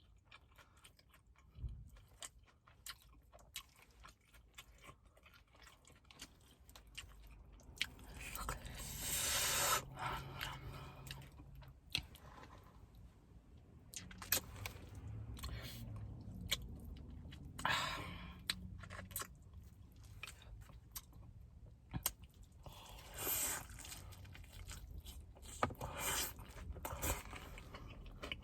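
A person chewing and crunching crunchy fast food close to the microphone. It is mostly quiet with small clicks for the first few seconds, then comes in irregular crunching spells, the loudest about a third of the way in, past the middle and near the end.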